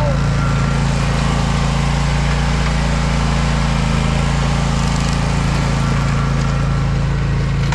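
John Deere Z530R zero-turn mower's engine running steadily.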